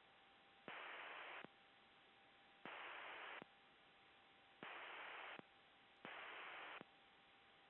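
Near silence broken by four short bursts of radio static, each under a second long and starting and ending with a click: a helicopter intercom or radio channel keyed open with no one speaking.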